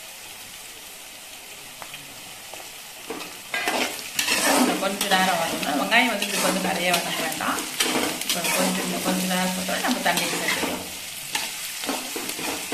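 Chopped onions and green chillies sizzling in hot oil in a kadai while being stirred and scraped around the pan. A steady quiet sizzle at first; about three and a half seconds in the stirring starts, with many quick scrapes over the sizzle, easing off near the end.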